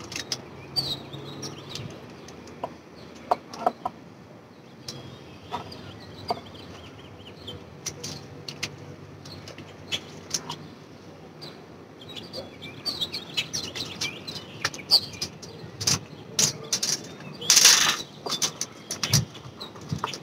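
Small birds chirping in the background, with a faint steady low hum, while scattered sharp clicks and rustles come from gear being handled; the loudest is a brief rustling burst near the end.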